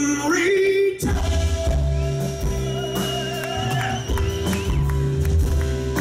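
Live jazz ballad: a male singer glides up into a held note, and about a second in the band comes in underneath with a deep bass line, drums and sustained higher instrumental notes.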